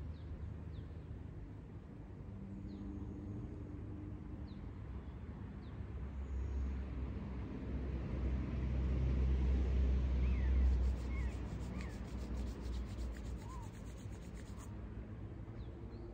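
Outdoor background: a distant vehicle's low rumble that swells and fades over several seconds. Short bird chirps come through, and a high, rapidly pulsing buzz lasts about four seconds in the second half.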